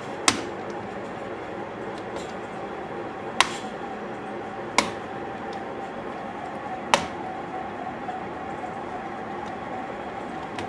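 Four sharp plastic snaps a second or more apart, as the clips of a laptop's plastic case come loose while the casing is pried open, over a steady background hum.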